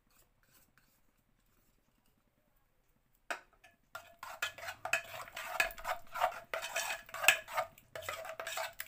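Steel spoon stirring and scraping a thick marinade in a stainless-steel bowl, with quick repeated clinks of spoon against the bowl. It starts about three seconds in after near silence.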